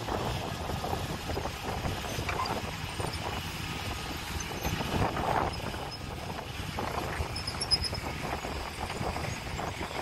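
Heavy dump truck running while its raised bed tips out a load of dirt, a rough, uneven rumble. A brief sharp sound stands out about three-quarters of the way through.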